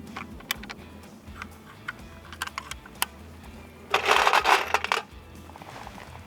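Light, sharp metallic clicks and clinks of ammunition and rifle being handled. About four seconds in comes a loud rush of noise lasting about a second.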